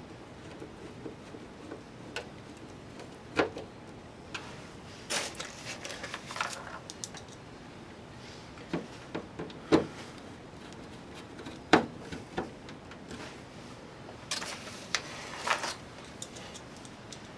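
Scattered clicks and knocks of screws being set loosely by hand into the plastic rear panels of a DLP television, with two short stretches of scraping and rattling as screws and panel are handled.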